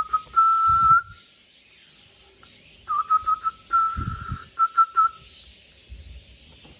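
Clear, steady-pitched whistling in two phrases, each a few quick short pips and then a held note. The first phrase comes at the start and the second about three seconds in.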